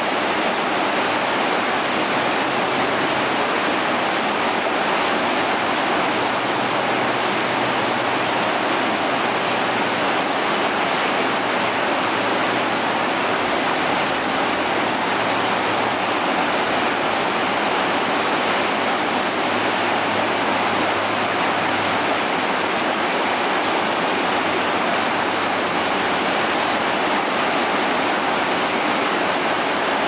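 Shallow river rapids rushing over rocks: a steady, unbroken rush of white water.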